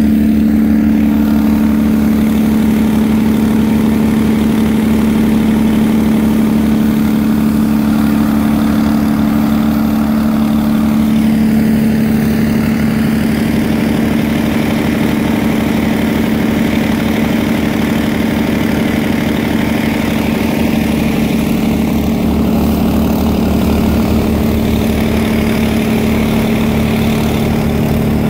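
Engine of a large Industrial Brownhoist crane running steadily at constant speed while the crane is moved, a strong even hum with fast regular firing pulses underneath.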